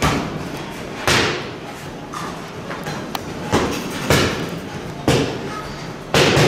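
Boxing gloves striking focus mitts: a string of sharp smacks, irregularly spaced about a second apart, each with a short echo of a large room.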